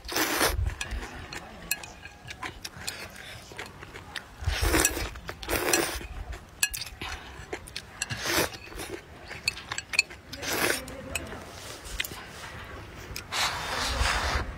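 Slurping noodles in spicy broth: about half a dozen short slurps a few seconds apart, with small clicks of chopsticks against a ceramic bowl between them. Near the end comes a sip of broth straight from the bowl's rim.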